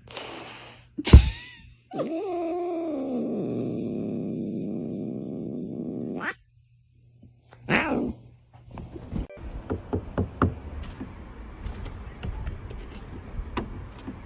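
A loud thump about a second in, then a cat's long, drawn-out yowl of about four seconds that cuts off abruptly, followed by a run of irregular light clicks and taps.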